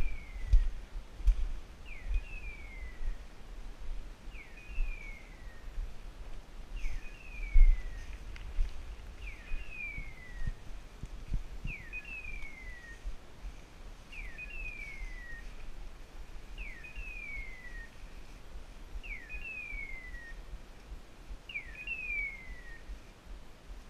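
Electronic beeper on a hunting dog's collar chirping at a steady pace, about once every two and a half seconds. Each chirp is a quick rising sweep followed by a longer falling one. Low thumps and rustling underneath are heaviest in the first eight seconds.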